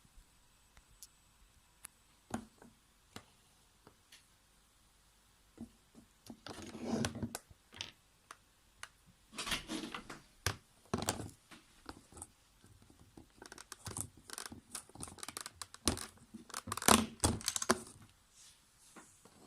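Hands handling small objects and packaging: scattered light clicks and knocks, then several stretches of rustling and clattering with many sharp clicks, the loudest near the end.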